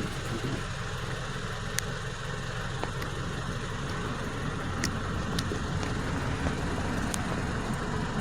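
Toyota Camry engine idling steadily, with a few faint clicks over it.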